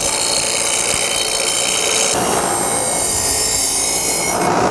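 Bench grinder running with the edge of a steel exhaust pipe held against its wheel, grinding a bevel into it. The steady grinding noise changes tone about halfway through and again near the end as the pipe is moved on the wheel.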